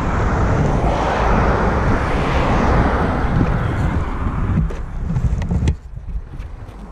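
Wind buffeting an action camera's microphone: a loud rushing noise with a heavy low rumble, which drops off suddenly near the end.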